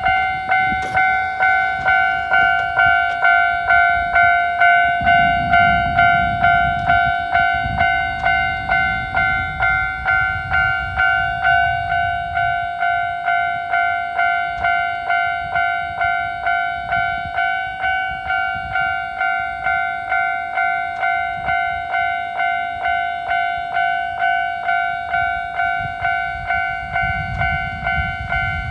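Japanese level-crossing warning bell ringing in a steady, even rhythm of about three strokes every two seconds, each ring a clear pitched tone. A train's low rumble passes under it for several seconds, and a train is heard again near the end.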